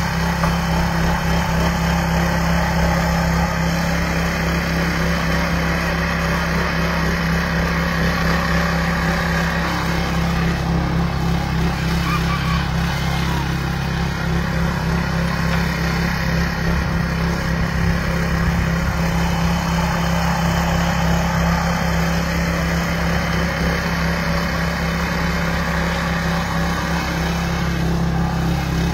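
Small petrol engine of a walk-behind rotary tiller running steadily under load as its tines churn the garden soil.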